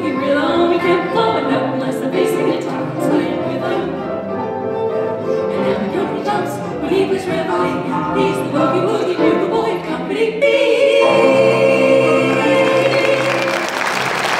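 Female vocal trio singing in close harmony with piano, violin and double bass, then holding a long final chord from about ten seconds in. Audience applause swells up under the last chord near the end.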